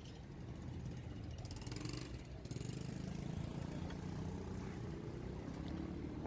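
Low, steady rumble of a motor vehicle's engine running nearby, with a short spell of rapid fine ticking about two seconds in.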